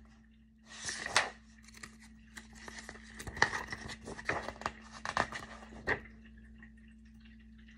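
Pages of a book being turned and handled: a papery swish about a second in, then a run of short rustles and taps.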